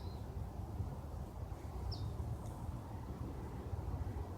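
Faint low drone of a distant single-engine Cessna light aircraft flying overhead, steady throughout. Two short high bird chirps come about two seconds in, half a second apart.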